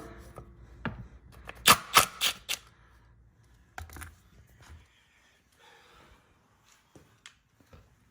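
Handling noise: a run of sharp clicks and knocks, loudest in a quick cluster about two seconds in, then a few faint scattered clicks.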